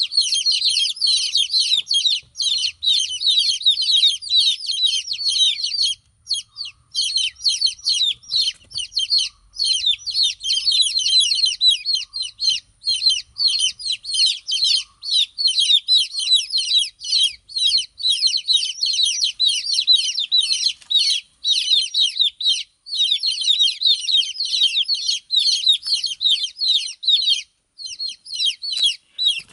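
A brood of baby chicks peeping loudly and without let-up, many rapid high-pitched chirps overlapping, with a few short breaks. These are the distress calls of chicks separated from their mother hen. A faint lower note repeats about once a second under the chirping in the first half.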